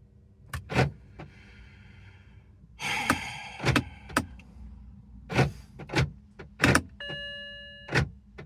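A BMW E90's body electrics acting up on their own: a string of sharp clicks and clunks from relays and lock actuators, a brief electric motor whir near the start, and a steady electronic tone lasting about a second near the end. The car won't start after sitting for a year and a half on a battery maintainer, and the owner calls this erratic behaviour.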